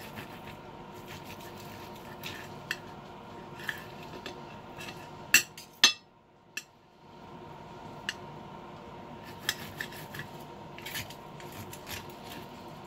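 Knife and fork clicking and scraping on a ceramic plate while slicing a steak, in scattered light strokes with two louder clinks about five and a half seconds in.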